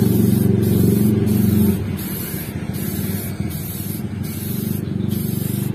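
Aerosol spray-paint can hissing in short bursts as red paint is sprayed onto a bus's steel mud guard. A low droning hum is loud at the start and drops away about two seconds in.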